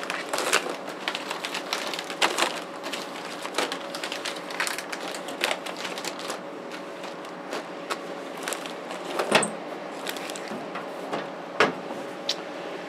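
Hands rummaging through a metal drawer of bagged electronic parts and wire: irregular clicks and crinkles of plastic bags and small items, with two louder knocks near the end. A faint steady hum runs underneath.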